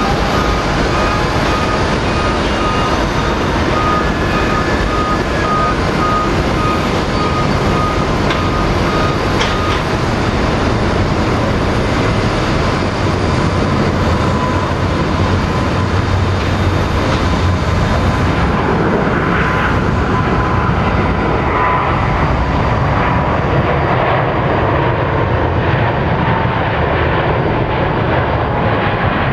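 Boeing 777-300 jet engines at takeoff thrust during the takeoff roll: a loud, steady rush of engine noise with a whining fan tone over it.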